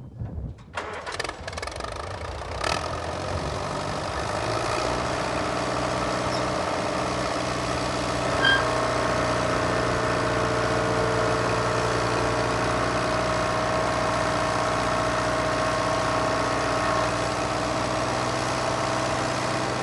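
Allis-Chalmers WD tractor's four-cylinder engine starting up and settling into a steady run. From about a third of the way in until near the end, a steady higher note runs over it while the engine drives the remote hydraulics that raise the New Idea round baler's tailgate.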